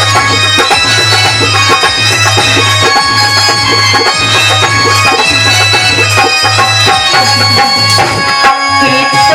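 Instrumental interlude of Indian folk music in the Alha ballad style: a hand drum keeps a steady beat under held melodic notes from an accompanying instrument, with no singing.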